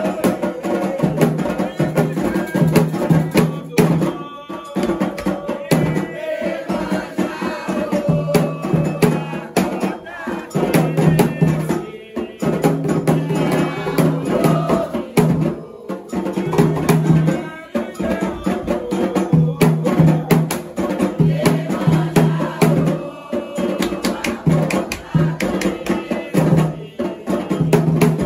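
Candomblé ritual music: atabaque hand drums beating a fast, steady rhythm, with a struck bell and a rattle, and voices singing over the drumming.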